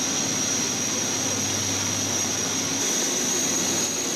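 Military fast boat running at speed: steady engine noise mixed with rushing water and wind, with a constant high whine over it.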